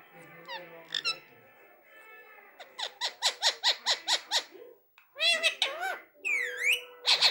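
Rose-ringed (Indian ringneck) parakeet calling: a few short chirps, then a rapid run of sharp squawks about three seconds in, followed by a few longer calls that rise and fall.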